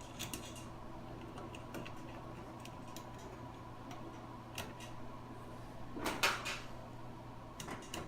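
Scattered light clicks and clinks of a screwdriver and small metal parts being handled while a strain relief is fitted to a dryer power cord, with a louder cluster of rattling about six seconds in. A steady low hum runs underneath.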